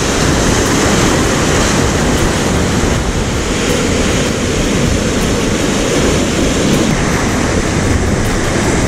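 Heavy surf breaking and washing over rocks: a loud, steady rush of sea water.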